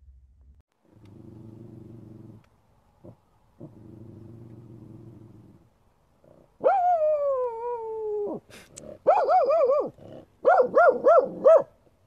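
Corgi growling low in two long stretches, then a long cry falling in pitch, then a run of quick, loud barks, about three a second.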